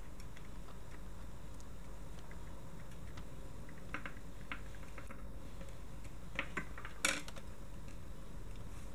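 A thin metal screwdriver prying at the plastic shell of a Canon PowerShot SX100 IS compact camera, making faint clicks and scrapes. There are a few light clicks around four seconds in and a louder cluster of clicks about seven seconds in.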